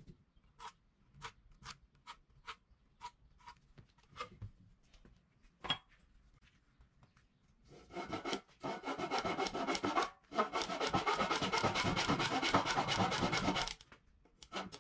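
Handsaw cutting through a small softwood block with rapid back-and-forth strokes. The cutting starts about halfway through, pauses briefly, then runs on until shortly before the end. Earlier come a few light, evenly spaced scratches.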